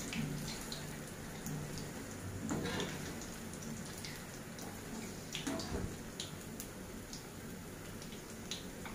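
Bread rolls deep-frying in hot oil: a steady, quiet sizzle with a few faint crackles scattered through it.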